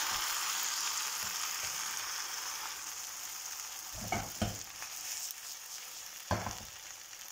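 Potato omelette sizzling in oil in a granite-coated frying pan, just flipped so its raw side meets the hot pan; the steady sizzle slowly fades. A few soft knocks in the second half.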